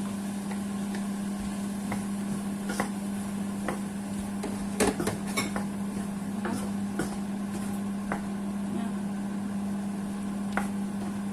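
Cooking utensil clicking and knocking against a wok as chopped bell peppers are added and stirred in, with scattered clicks and a louder cluster about five seconds in, over a steady low hum.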